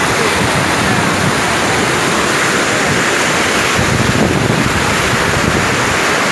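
Muddy floodwater rushing through a breach in an earthen bank and churning down a swollen stream: a loud, steady rush of water.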